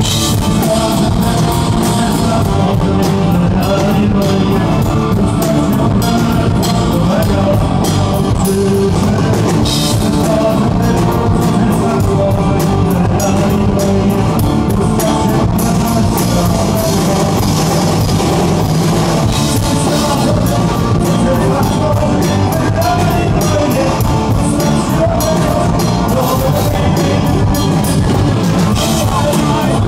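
Rock band playing live through a loud PA: drum kit, electric guitars and a singing voice.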